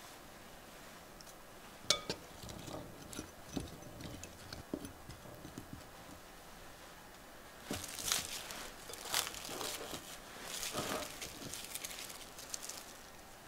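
Quiet kitchen handling sounds: light clinks and taps of a metal fork stirring diced potatoes in water in a glass bowl. From about eight seconds in, bursts of crinkling plastic wrap are heard as the bowl is covered.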